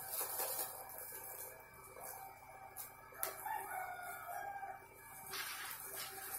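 Plastic bags of raw peanuts rustling as they are opened and the nuts tipped into a stainless steel pot roaster. About three seconds in a drawn-out crowing call of about a second sounds in the background.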